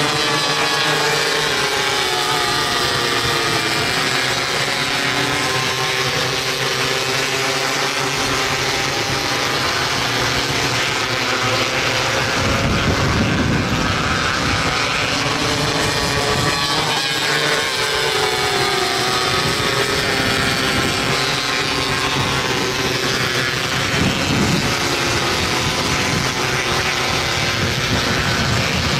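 270-class micro sprint car engines racing, their engine notes rising and falling in pitch as the cars lap the track, growing louder and fuller as they pass close by a little under halfway through.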